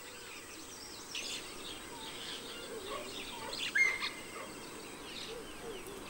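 Forest ambience of scattered small bird chirps and calls, with a couple of slightly louder calls about a second in and again near the middle.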